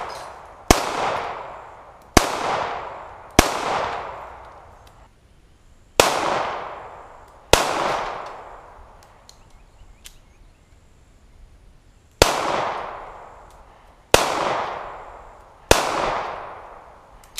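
Zastava M88A 9mm pistol fired single shots, eight in all at uneven intervals of one to four seconds, each crack trailing off in a long echo. There is a longer pause of about four seconds near the middle.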